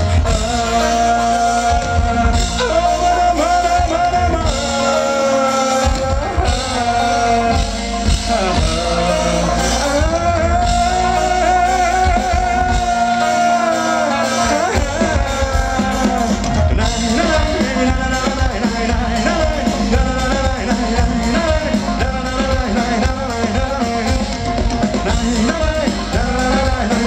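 Live rock band playing: drums, electric bass and guitars, with a male singer singing into a handheld microphone over the band.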